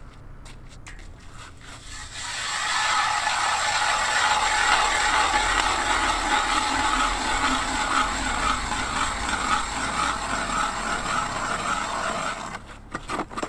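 Hand ice auger cutting into lake ice: a steady scraping grind with an even pulse from the turning blades. It starts about two seconds in and stops shortly before the end. The ice is incredibly thick.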